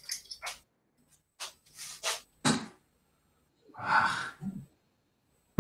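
Steel-tip darts striking a bristle dartboard, heard over a webcam microphone as a series of short separate knocks, with a longer breathy noise about four seconds in.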